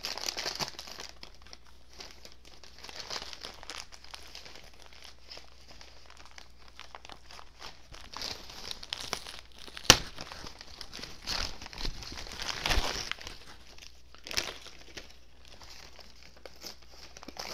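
Paper package wrapping being torn open and crumpled by hand, an irregular rustling and crinkling, with one sharp click about ten seconds in.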